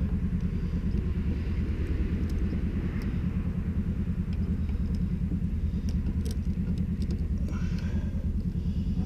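An engine idling steadily: a low, even rumble with a regular beat. A few light clicks from a wiper blade being worked off its arm sound over it.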